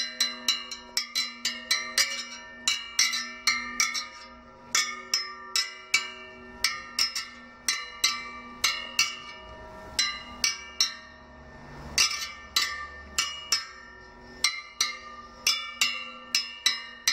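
The steel spokes of a Honda Africa Twin RD07A front wheel being tapped one after another, at about three taps a second with a few short pauses. Each tap gives a short metallic ring at its own pitch, a musical sound that the spokes have now that the wheel has been relaced and trued.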